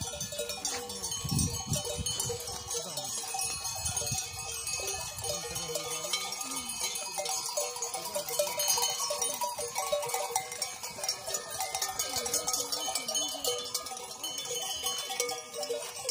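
A flock of sheep with neck bells: many bells clanking and ringing together as the animals move, with sheep bleating among them. A few low rumbles come in the first few seconds.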